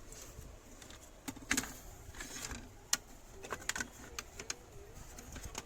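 Scattered sharp clicks and light knocks from handling cables and plugging connectors into an opened LED TV's circuit boards, the loudest about one and a half seconds and three seconds in.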